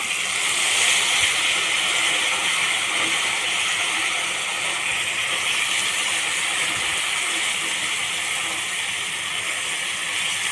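Freshly washed flat beans (chikkudukaya) sizzling in hot oil in a frying pan: a steady hiss that starts abruptly as they go in.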